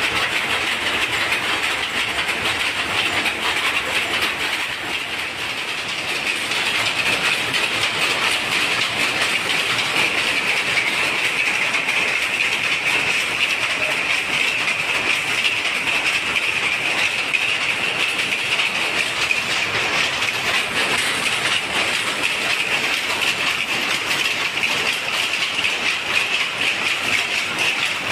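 Jacquard power looms running together in a continuous, dense mechanical clatter.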